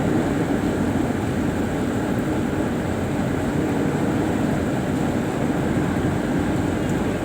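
Steady drone of a tugboat's diesel engines heard on board while under way, with the hiss of wind and water around the hull.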